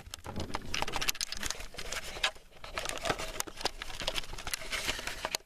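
Handling noise on a camcorder's microphone: irregular rubbing, crackling and tapping as the camera is gripped and moved.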